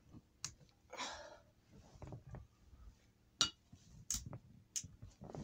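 Faint handling noise of a phone being moved against clothing and fur: a short rustle about a second in and a few sharp clicks and knocks spread through.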